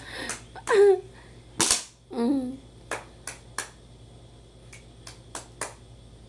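Children's short excited exclamations with a loud sharp smack about one and a half seconds in, followed by a scattering of about seven light, sharp hand claps and slaps.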